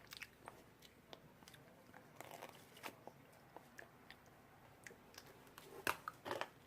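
Hard dalgona honeycomb toffee being bitten and chewed close to the microphone: scattered small crunches and crackles, with a few louder crunches near the end.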